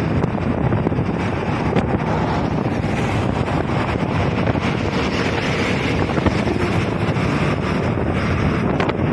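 Wind buffeting the microphone on a moving vehicle at road speed: a loud, steady rushing noise with road and engine noise underneath.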